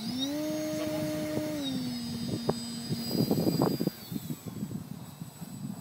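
Multiplex EasyGlider RC motor glider's electric motor and propeller whining steadily at high power through the hand launch and climb. The whine steps down in pitch about one and a half seconds in, as the throttle is eased, and cuts out about four seconds in as the model goes over to gliding. Gusts of wind rumble on the microphone shortly before the motor stops.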